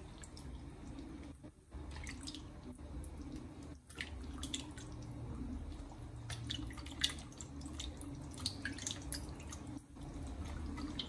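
Liquid dripping and small wet splashes as pieces of fish are lifted dripping from a bowl and lowered into a pot of simmering groundnut soup, a scatter of short drips and plops over a low steady hum.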